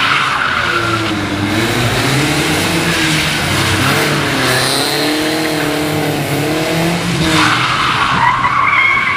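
BMW E36 3 Series sedan's engine revving up and down as the car slides around cones, with tyre skid noise on wet tarmac. The tyre noise swells again near the end with a rising squeal.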